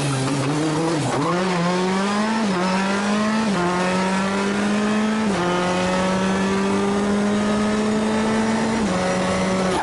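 Peugeot 208 T16 R5 rally car's turbocharged four-cylinder engine under hard acceleration. Its pitch dips briefly about a second in, then climbs through the gears and drops back at each of several upshifts as the car runs flat out down a straight.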